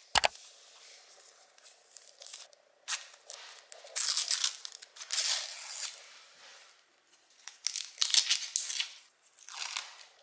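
Paper backing being peeled and torn off adhesive bandages, heard as several short crinkling rips with pauses between them. A sharp click comes right at the start.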